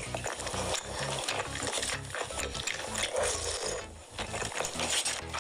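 Mukbang eating sounds: roast chicken being pulled apart by hand and chewed, an irregular crackle of many small clicks.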